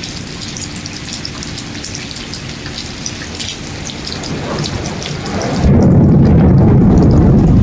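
Steady rain falling, with the patter of many single drops. About four and a half seconds in, a low rumble of thunder builds and turns loud, covering the patter.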